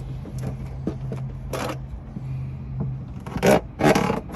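A corroded outboard battery cable being cut open with cable cutters: short scraping crunches, then two louder crunches near the end, over a steady low hum. The crunchiness comes from the green and black corrosion inside the copper strands.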